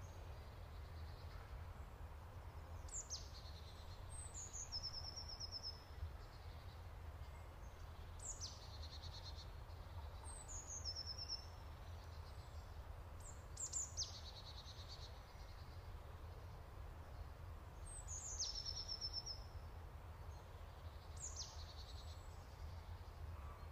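Songbird calls: about a dozen sharp high notes, some in quick pairs, each dropping in pitch and running into a short rapid trill, over a steady low background hum.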